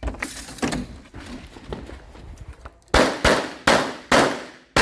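Pistol shots on a timed shooting stage: a few lighter cracks and clatter in the first three seconds, then a fast string of four loud shots about half a second apart, each with a ringing tail, and one more starting at the very end.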